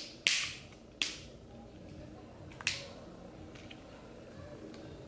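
Sharp plastic snaps and cracks from a plastic toy container being forced open by hand: four loud ones in the first three seconds, then a few fainter clicks.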